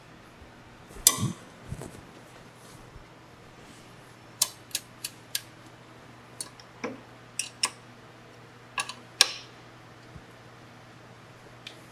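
Metal hand tools clinking and tapping, with a scatter of short sharp clicks. The loudest come about a second in and again near nine seconds, over a faint steady hum.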